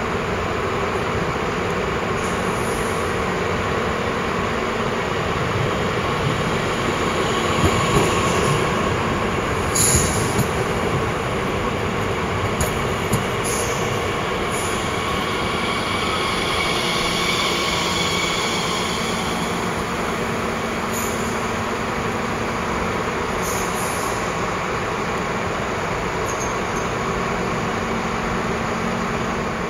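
Bombardier Talent 2 electric multiple unit (class 442) pulling slowly into a terminus platform and stopping, a steady running rumble of motors and wheels. A high wheel or brake squeal comes about halfway through as it slows, with a few brief clicks.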